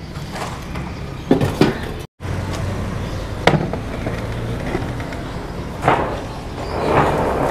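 A steady low motor hum with a few sharp knocks and clatters over it, cut to silence for a moment about two seconds in.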